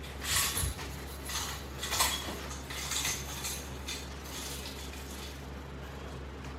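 Metal exercise-equipment fittings clinking and rattling several times in the first four seconds, over a steady low hum.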